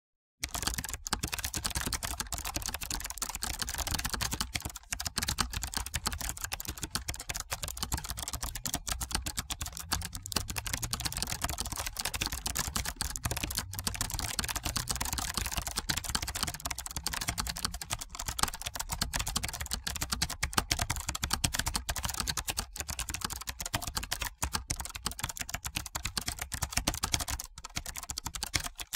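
Computer keyboard typing: rapid, continuous, irregular keystrokes that start about half a second in.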